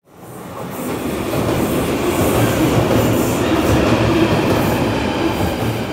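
London Underground tube train running into a station platform, its rumble rising over about the first second and then holding steady and loud.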